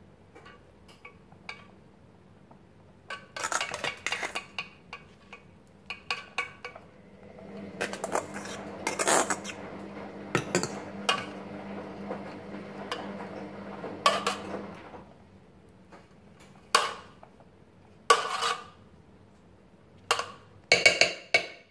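A steel spoon scrapes and clinks against a steel colander and a steel pot as cooked rice is scooped out and spread in a layer. The clinks come in irregular bunches, with a low hum under the middle stretch.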